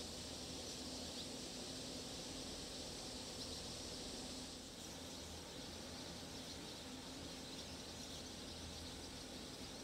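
Steady, high-pitched insect chorus, dipping briefly in level just under five seconds in.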